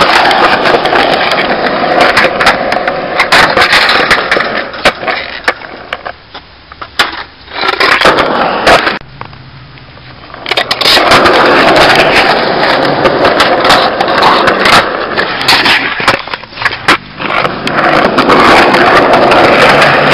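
Skateboard wheels rolling on concrete pavement, with sharp clacks as they cross the slab joints and knocks of the board. The rolling drops away twice, briefly about six seconds in and for about two seconds near the middle, then runs on loud.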